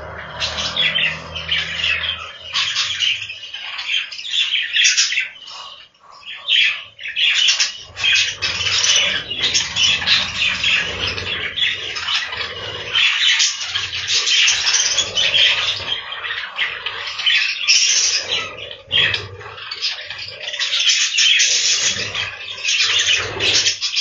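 A flock of budgerigars chattering continuously, many birds calling at once.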